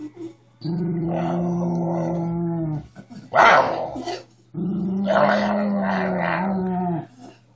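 Miniature schnauzer growling: two long, steady growls of about two seconds each, with a short, louder snarl between them about three seconds in.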